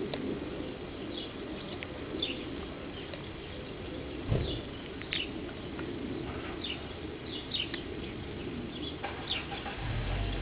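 Small birds chirping in the background: short, high chirps that drop in pitch, repeated irregularly, over a steady low outdoor hum. A single dull thump about four seconds in.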